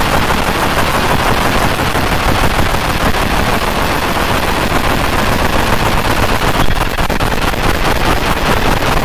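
JPT 50 W fiber laser engraving a metal dog tag: a steady, dense, rapid crackling buzz as the pulsed beam burns across the metal surface.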